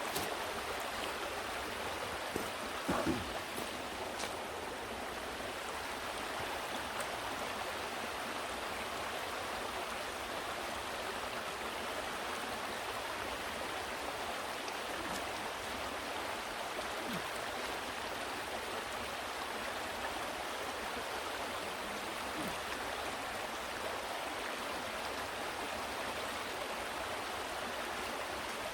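Steady rush of water from a small waterfall and stream, with a couple of brief knocks about three seconds in.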